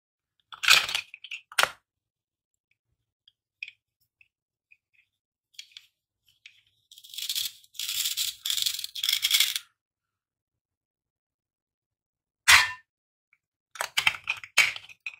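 Hard plastic toy food pieces clicking and clattering, then the velcro holding a toy red pepper's two halves together tearing apart in about four short rips. More plastic clatter follows near the end.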